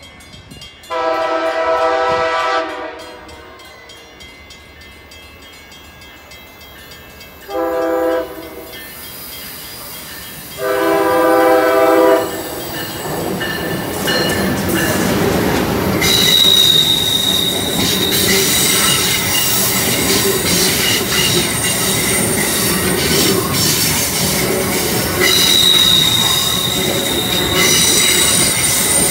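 Amtrak train horn sounding three blasts as the train approaches: a long one, a short one, then another long one. The train then passes close by at speed, rumbling loudly, with a high wheel squeal twice as it rounds the curve.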